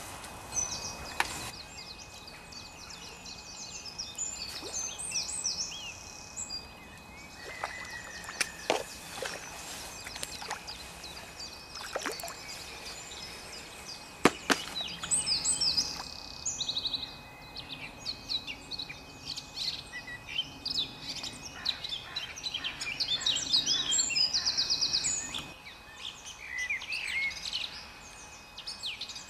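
Wild songbirds singing and calling, with a long stretch of fast warbling song in the second half. A few sharp clicks sound in the first half.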